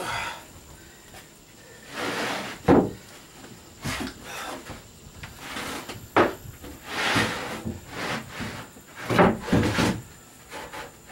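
Plywood deck panels being slid and shifted into place on a boat's cabin deck framing: wood rubbing and scraping on wood, with a few sharp wooden knocks, one about three seconds in and several close together near the end.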